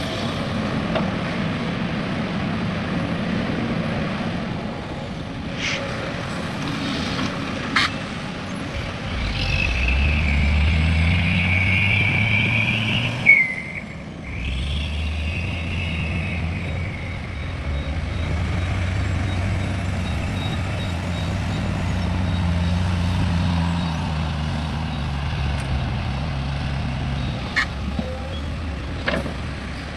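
Heavy diesel engines of an excavator and dump truck working. The engine note rises under load about nine seconds in, with a high whine that cuts off a few seconds later, and there are a few sharp knocks.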